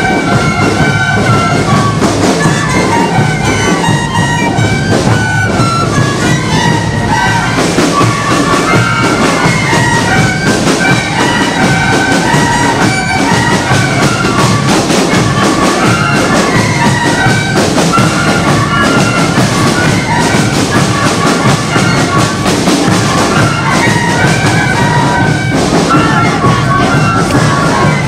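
Bolivian carnival music: a group of anata flutes playing a reedy unison melody over bass drums and drums beating a steady dance rhythm.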